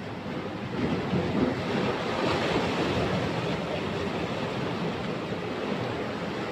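Sea waves washing and breaking against shoreline rocks, the surge swelling about a second in.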